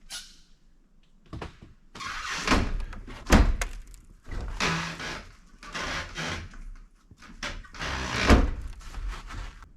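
Rustling and knocking of things being handled and moved, with two heavy thumps, about three and eight seconds in.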